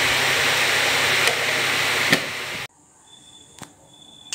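A loud, steady hiss with a couple of faint clicks that cuts off suddenly about two and a half seconds in, followed by a much quieter room with a single click.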